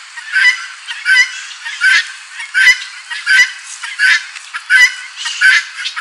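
Helmeted guineafowl calling: harsh, loud calls repeated at an even pace, roughly every two-thirds of a second.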